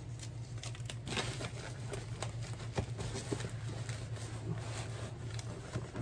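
Faint rustling and light taps of gloved hands handling a cardboard box and a roll of packing tape, over a steady low hum.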